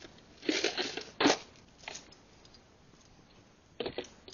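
Fishing tackle being handled on a boat: a few scraping, rustling bursts in the first second and a half, then a quick cluster of sharp clicks near the end as a bladed lure is handled.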